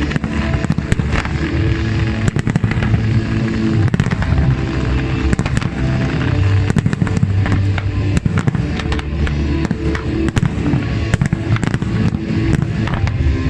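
Fireworks display: many shells bursting in dense, irregular bangs, over loud accompanying music.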